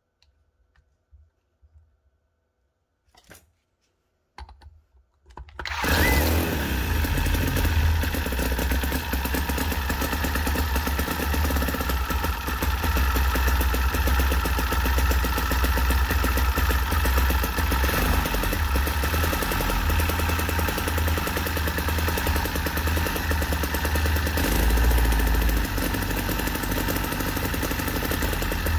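A few faint clicks, then a 9cc four-stroke air-cooled V-twin gasoline model engine catches suddenly about six seconds in. It keeps running steadily at a fast, even speed.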